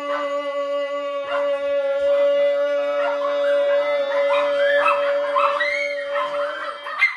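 A man holds one long, steady sung note for about seven seconds. From about two and a half seconds in, a dog howls and yips along above it in higher, wavering cries.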